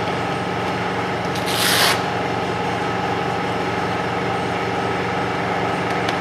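Palm sander running steadily as it wet-sands a plastic headlight lens, with a brief hiss about a second and a half in.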